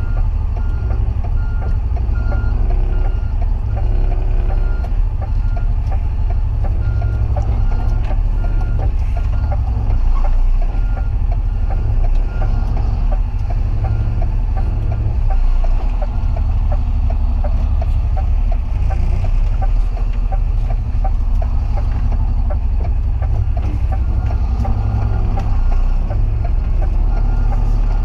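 Truck's reversing alarm beeping steadily, about once a second, over the low rumble of its engine heard from inside the cab while the truck is manoeuvred in reverse. The beeps drop away for a few seconds about two-thirds of the way through.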